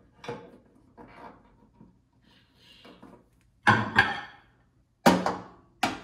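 Microwave turntable parts being fitted into the oven cavity: light plastic taps and rattles, then louder hard knocks about three and a half, four and five seconds in as the pieces are seated.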